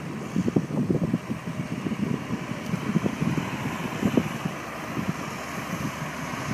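Deutz-Fahr TTV 610 tractor running steadily while ploughing, with irregular low buffeting of wind on the microphone.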